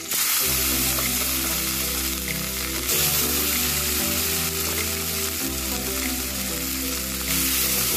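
Small fish dry-frying in a little hot oil in a steel kadai, a steady sizzle, with background music underneath.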